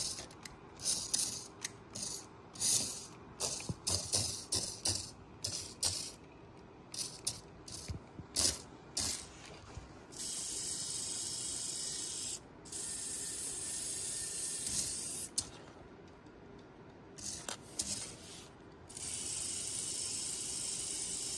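Tiny electric gear motors of a mini RC toy forklift: a string of short clicks and brief whirring spurts, then the motors running in three longer stretches of a steady high whir, each lasting two to four seconds.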